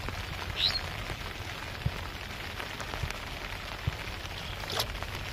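Rain falling on shallow floodwater, a steady even patter, with a few soft knocks and a brief high chirp about half a second in.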